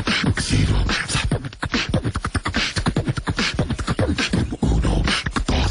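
A person's voice making rapid percussive mouth sounds, like beatboxing: quick clicks and hisses over heavy bass thumps.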